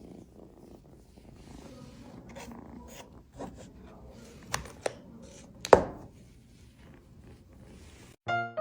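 Kitten purring, a low steady rumble, with a few sharp clicks or taps, the loudest about two thirds of the way through. Piano music comes in near the end.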